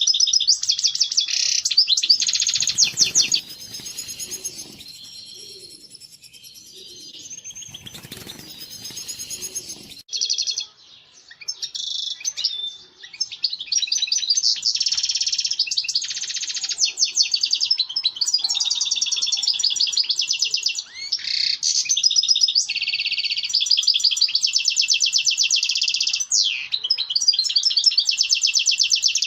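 European goldfinch singing its breeding (mating) song: fast, tinkling twitters and trills. The song breaks off for several seconds after about three seconds in, then starts again and runs on.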